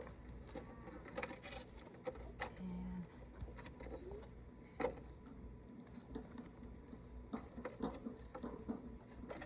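Faint, scattered clicks and rustling from hands twisting stripped electrical wires together, with one sharper click about five seconds in.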